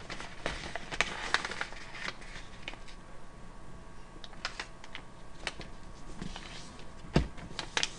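A sheet of origami paper rustling and crinkling as it is folded by hand and creased flat against a tabletop, with scattered crisp ticks. A single sharper knock comes near the end.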